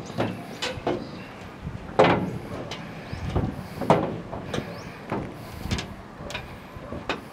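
Footsteps knocking on the steel deck of a small railway bridge, about one every half to two-thirds of a second, the loudest around two and four seconds in.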